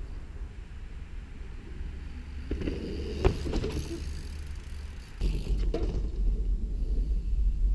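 Cannondale Habit SE mountain bike riding over a dirt trail covered in dry leaves: tyres crunching through the leaves and soil with clicks and rattles from the bike, in two bursts, the second as it passes close about five seconds in. A steady low rumble runs underneath.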